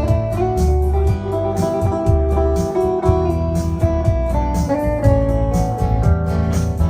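Instrumental break of a country-folk song: guitars play a melody over strummed chords and a bass line, with a steady beat.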